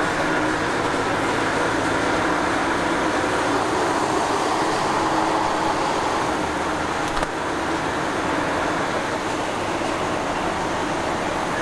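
Mercedes Actros lorry's diesel engine running steadily, heard from inside the cab as it moves slowly across an enclosed ferry vehicle deck. There is a single sharp knock about seven seconds in.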